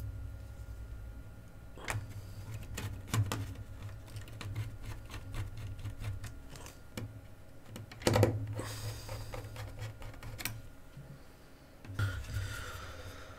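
Small screwdriver turning screws into a PC Engines APU2 board and its metal case: irregular small clicks and ticks with low knocks of the unit against the bench. The loudest knock comes about eight seconds in.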